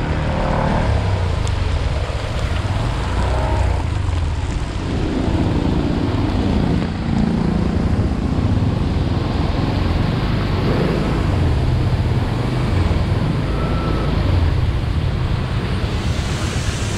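Steady rush of wind on an action camera's microphone and tyres hissing through standing water while riding along a flooded, rain-soaked road. Near the end a passing car splashes through the water.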